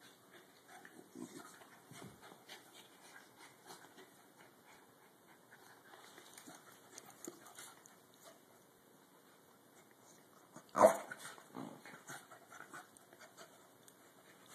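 Two corgis play-wrestling, with faint panting and small scuffling sounds throughout, and one sudden loud sound about eleven seconds in.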